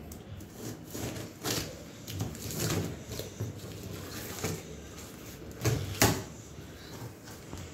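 Scissors cutting through the plastic wrapping on a cardboard box, with crinkling plastic and irregular snips and clicks. A sharp click about six seconds in is the loudest sound.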